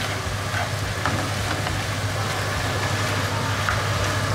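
Chicken and vegetables sizzling in a hot stir-fry pan over a gas flame, with a metal spoon scraping and clicking against the pan now and then. A steady low hum runs underneath.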